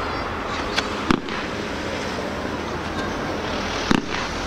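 Fireworks shells bursting in sharp bangs: a pair close together about a second in and another near the end, over a steady background hiss.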